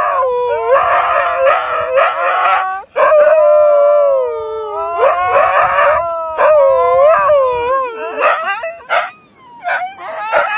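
Two huskies howling together, long drawn-out howls that glide up and down in pitch, the two voices overlapping. The howls give way to shorter, broken calls about eight seconds in.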